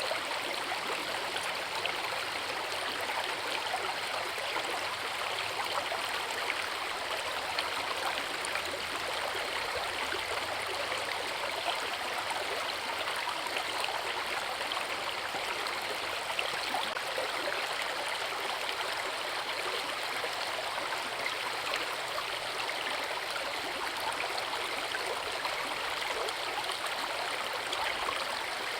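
Forest river with a waterfall: water flowing and splashing over rocks in a steady, even wash of sound.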